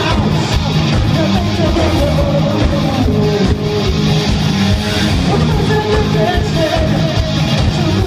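Live rock band playing loud: electric guitar and drums, with a singer's voice wavering over them, unbroken.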